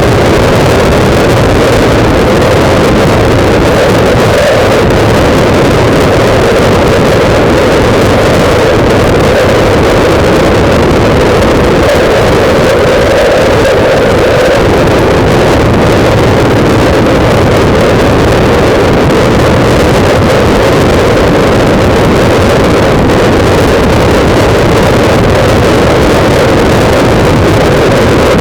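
Loud, steady wind buffeting the microphone of a camera mounted on a motorbike while riding, with the motorbike's engine running underneath.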